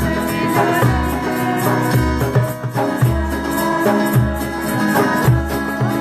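Live devotional chant music: a harmonium holding steady chords, with hand drums thumping a regular beat, a shaker ticking over it, and guitar.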